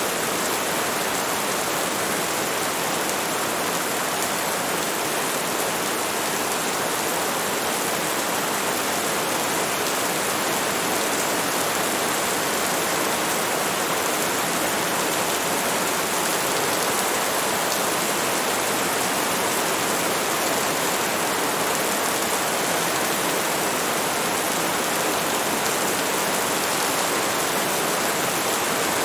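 Steady heavy rain falling, an even hiss of countless drops with no single drops standing out and no thunder.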